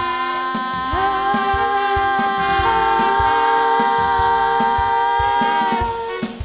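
Live band music: several female singers hold one long note in harmony over a drum beat, the voices sliding up into the chord about a second in, a higher voice joining partway through, and the chord breaking off near the end.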